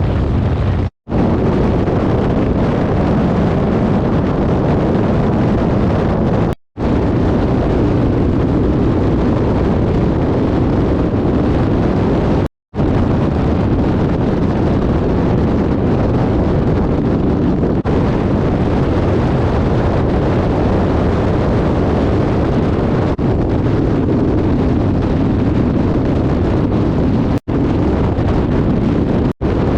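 Harley-Davidson motorcycle riding at road speed, with heavy wind buffeting the microphone over the engine's low, steady running. The sound cuts out completely for an instant five times.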